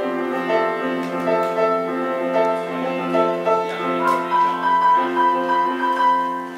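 Piano music: a melody of changing notes over held chords.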